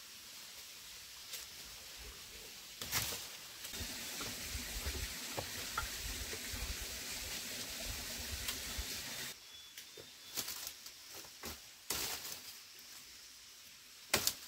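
Footsteps in rubber boots crunching over dry bamboo leaves and twigs on a rocky streambed, with rustling litter and sharp cracks of twigs, the loudest a pair of snaps near the end as dead branches are handled.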